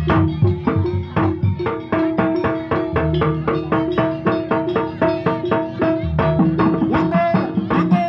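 Traditional Javanese jaranan gamelan music: pitched metal gong-chime notes struck in a fast, even pattern over hand-drum strokes, the beat settling into a steady quick pulse about two seconds in.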